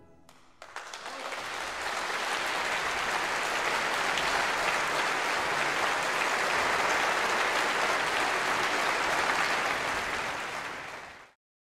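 Concert audience applauding. A few first claps come about half a second in, then the clapping holds steady and cuts off abruptly near the end.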